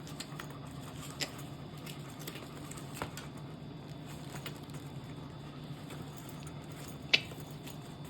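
Paper tape being peeled and unwrapped from a camera carry case's handle: soft rustling with a few sharp crackles, the sharpest about seven seconds in, over a steady low hum.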